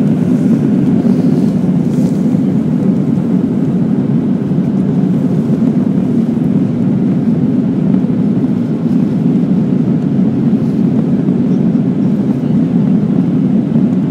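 Steady drone of jet engines and rushing air heard inside an airliner's cabin in flight, shortly after take-off.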